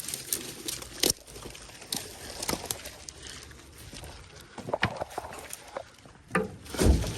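Light knocks and clicks at irregular intervals, with a heavier low thump near the end.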